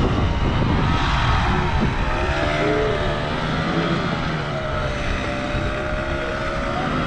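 Engine of a large wooden motorboat running under way, a steady drone whose pitch wavers slowly up and down over a low rumble.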